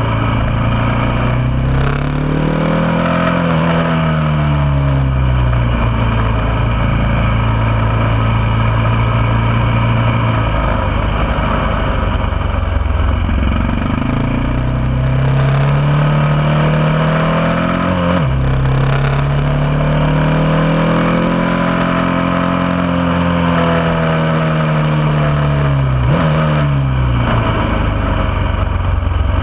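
Motorcycle engine heard from onboard, revving up under hard acceleration and then falling away into the corners, twice over. The pitch drops suddenly about two-thirds of the way through and again near the end.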